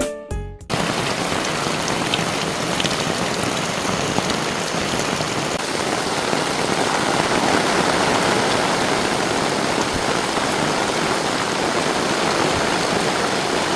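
Heavy rain falling steadily, an even hiss with faint scattered drops.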